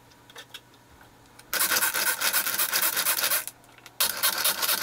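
Plastic pull-cord food chopper pulled twice, each pull about two seconds of fast rattling whir as the spinning blades chop bok choy, with a short pause between. A few light clicks come before the first pull.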